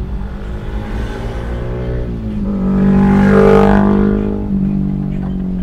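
Suzuki Carry Futura's engine heard from inside the cab, rising in pitch about two seconds in as it picks up revs, running loudest for a second or two, then easing off.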